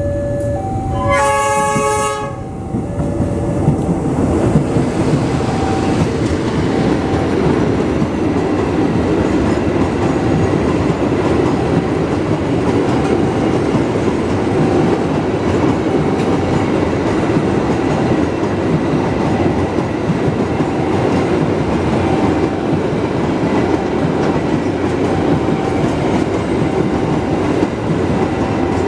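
A KAI diesel-electric locomotive gives a short horn blast about a second in. Then a long train of loaded fuel tank wagons rolls past with a steady, loud rumble of wheels on the rails. A faint repeating electronic warning tone sounds in the background.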